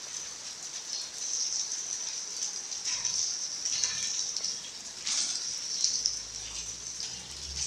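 Rain falling, a steady hiss with a few slightly louder moments.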